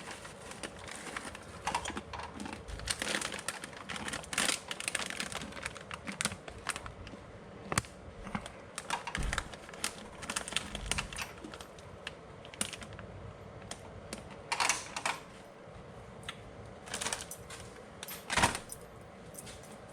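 Plantain chips crunching as they are bitten and chewed, with the bag crinkling: irregular crisp crackles and clicks, the loudest crunches late on.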